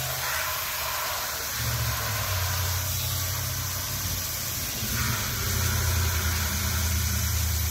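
Water running into a chicken waterer as it is filled, under a steady low mechanical hum that grows stronger about halfway through.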